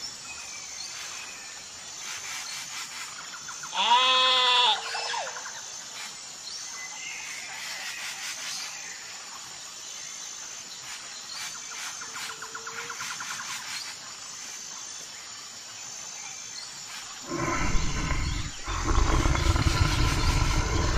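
A goat kid bleats once, a short falling cry about four seconds in. From about seventeen seconds in, lion cubs growl loudly and roughly.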